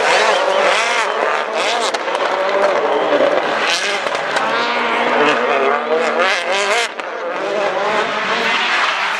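Rally car's engine revving hard as it slides through a hairpin, the pitch rising and falling repeatedly with throttle and gear changes.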